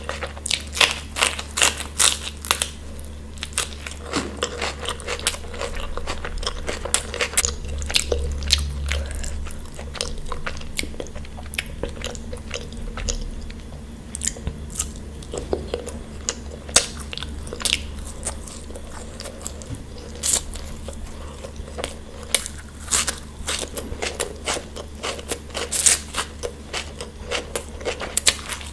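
A person chewing and biting crunchy food close to the microphone, with many short crisp crunches and wet chewing sounds coming several times a second, over a steady low hum.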